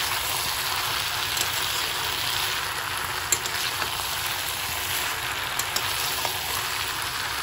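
Mixed vegetables (pui shak greens, potato, pumpkin and brinjal) sizzling in oil in a frying pan while a spatula stirs them. A few short clicks of the spatula against the pan come around the middle.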